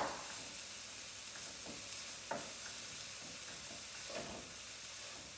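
Onion and thawed cauliflower rice sizzling as they stir-fry in olive oil in a pan, with a few light scrapes of a utensil stirring them. There is a sharp click right at the start.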